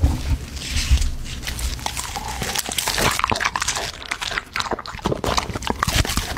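Golden retriever biting and crunching frozen treats, a beef liver ice waffle among them, fed by hand: a quick, uneven run of crisp crunches and chewing.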